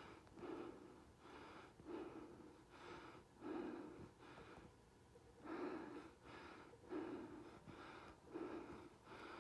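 A hiker's heavy breathing close to the microphone: quick, rhythmic breaths about every half second, as when climbing.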